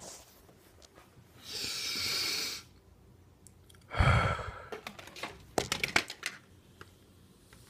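Handling noise as a phone camera is moved to a window: a breathy rustle, then a sudden thump about four seconds in, followed by a quick run of sharp clicks.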